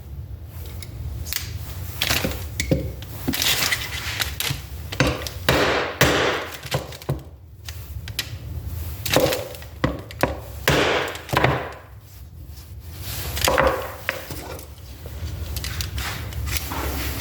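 Irregular knocks, taps and scrapes of metal tools and distributor parts being worked by hand, over a low steady hum. They come as a part is driven into the 4A-FE distributor housing a few millimetres at a time.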